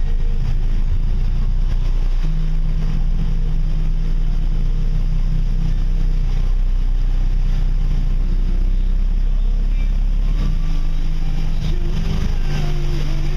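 Steady low drone of a car driving slowly through shallow floodwater, heard from inside the cabin: engine and tyres in water, with a low hum that comes in about two seconds in and drops out shortly before the end.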